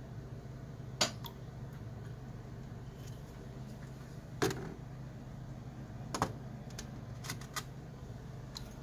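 Sharpening stones and their cases being handled and set down: a handful of short sharp clicks and knocks, the loudest about a second in and about four and a half seconds in, over a steady low hum.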